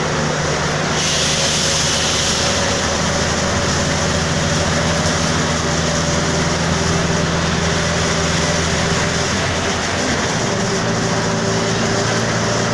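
Mercedes-Benz OF-1722M bus under way, its diesel engine running steadily with a steady higher whine from the growling differential over it. A hiss comes in about a second in and lasts a second or so.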